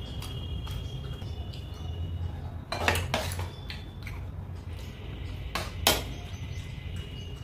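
Metal spoon clinking against stainless-steel bowls and plates, with the loudest clinks about three seconds in and again about six seconds in, over a steady low hum.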